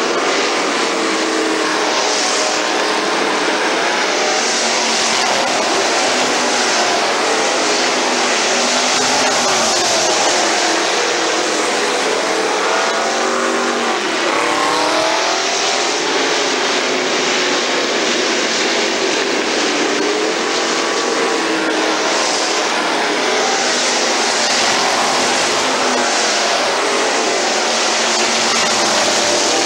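Several street stock race cars racing in a pack, their engines running hard. The engine pitch rises and falls as the cars come past and go away.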